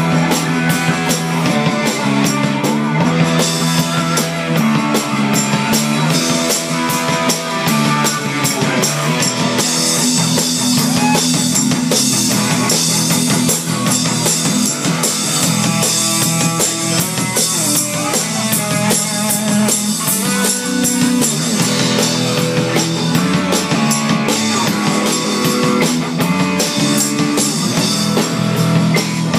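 Live rock band playing, led by a drum kit and guitar with a steady bass line.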